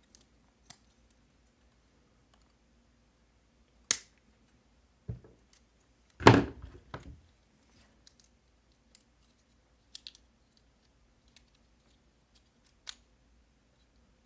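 Small parts being handled on a workbench as header pins are set into an Arduino Nano and its breakout-board holder. A sharp click, a dull knock, then a short clatter of quick knocks about six seconds in, followed by a few faint light clicks.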